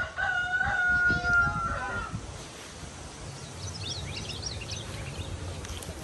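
A rooster crowing once: a single long held call of about two seconds, ending a little lower. Faint chirps of small birds follow.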